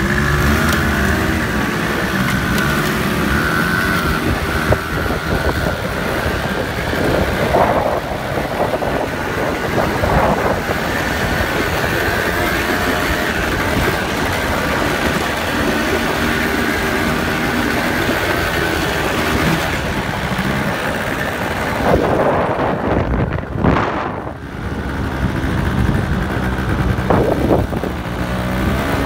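Quad bike (ATV) engine running while riding over sand, its pitch rising and falling as the throttle changes, with wind rushing over the microphone.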